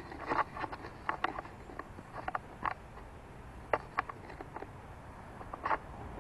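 Irregular light clicks and scuffs of someone walking on a concrete path with a handheld camera, over a faint steady low rumble.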